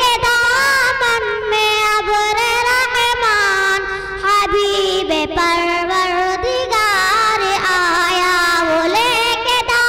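A young girl singing solo into a microphone, with no accompaniment. She holds high, long notes with wavering ornaments and takes brief breaths between phrases.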